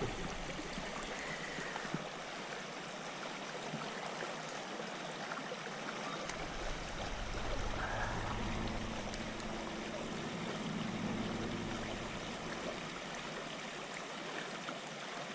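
Shallow stream running and trickling over a stony bed, a steady even rush of water.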